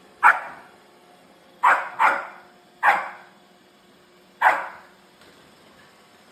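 A dog barking five times in short, separate barks, two of them close together near the middle, over a faint steady hum.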